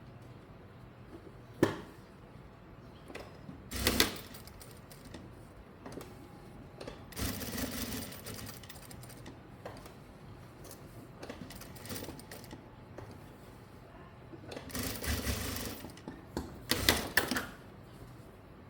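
Sewing machine stitching in short runs of a second or two, stopping and starting, with a few sharp clicks in between.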